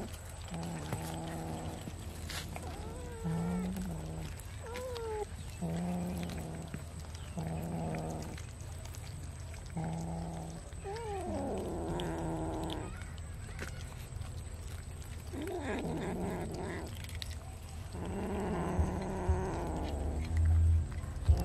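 Cats growling and yowling while they eat raw fish: about nine drawn-out low moans of roughly a second each, some bending up and down in pitch. This is the food-guarding growl of cats competing over the fish. A low thump comes near the end.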